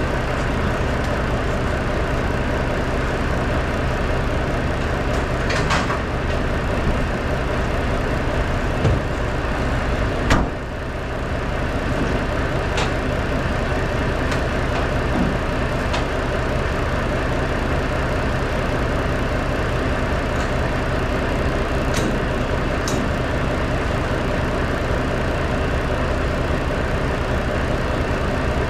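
Semi truck's diesel engine idling steadily, with a few light clicks and one sharp knock about ten seconds in.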